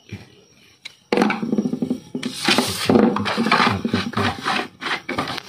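Manual HPL laminate cutter drawn along the edge of a high-pressure laminate sheet, cutting it: a loud, rough scraping and crackling that starts suddenly about a second in and keeps going.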